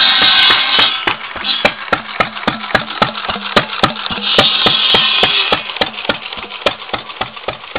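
Antique 4 hp Stover gas engine, throttle-governed rather than true hit-and-miss, firing in steady sharp pops about three a second. It drives a cordwood buzz saw whose blade rings and whines as it cuts through slab wood at the start and again about halfway through.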